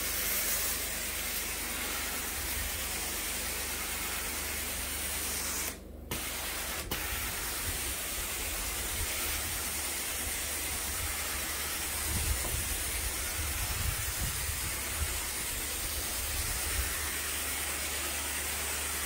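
Carpet-cleaning extraction wand spraying and vacuuming a carpet: a steady rushing hiss that cuts out briefly about six seconds in.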